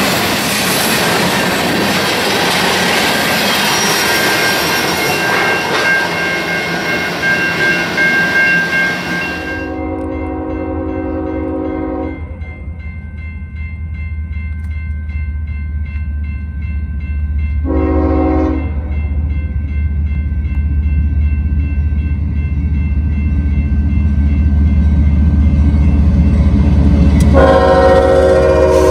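Freight cars rolling past on the rails with a steady rush of wheel noise. Then a CSX GE ES40DC diesel locomotive approaches, rumbling low and sounding its horn: a long blast, a short blast, and another long blast that begins near the end.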